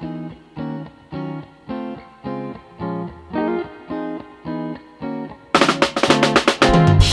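Background music: evenly paced plucked notes about twice a second, with a drum kit coming in loudly about five and a half seconds in.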